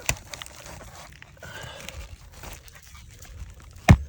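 Roofing hatchet driving a roofing nail through an asphalt shingle's nail strip: faint handling of the shingles, then one sharp strike near the end.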